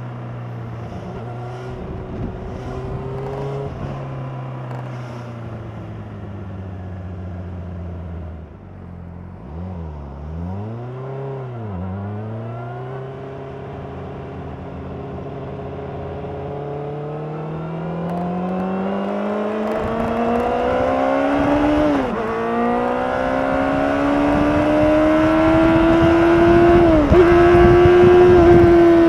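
Honda CBR600RR's inline-four engine through its stock exhaust: steady low revs, two quick throttle blips about ten seconds in, then accelerating hard with revs and loudness climbing, broken by two quick upshifts near the end.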